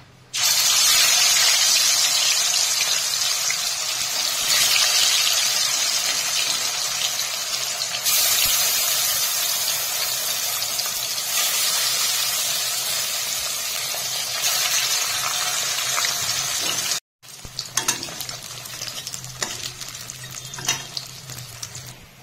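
Pieces of katla fish laid into hot mustard oil in a wok, setting off loud, steady sizzling of shallow-frying that starts suddenly as the first piece goes in. After a break about 17 seconds in, quieter sizzling with scattered pops and crackles of spattering oil.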